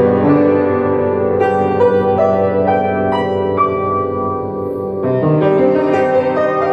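Beckwith home organ played by hand: held chords with a melody moving over them, the notes sustaining evenly rather than dying away.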